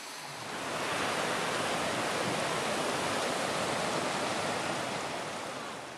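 Heavy rain pouring down onto a flooded street, a steady hiss of rain and running water that rises over the first second and eases off near the end.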